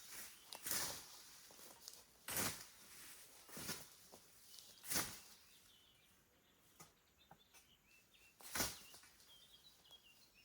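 Hand scythe swishing through grass in strokes, four about every second and a half, then a pause of a few seconds before a fifth. Faint bird chirps can be heard in the pause.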